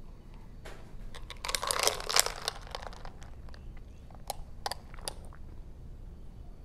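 Ice and a straw rattling against a glass jar of iced coffee for about a second, then three single clinks.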